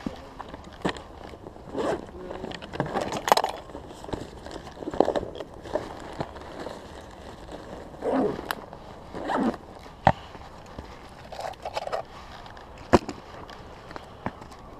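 Irregular scraping and rustling from fishing gear being handled and moved about, with a few sharp clicks and knocks.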